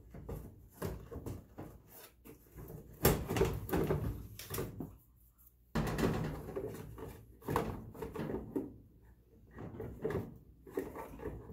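Plastic dryer blower fan housing being wiggled into place inside the sheet-metal dryer cabinet: irregular clacks, knocks and scrapes of plastic against metal. The loudest knocks come about three seconds in, with a brief lull just after five seconds before the handling starts again.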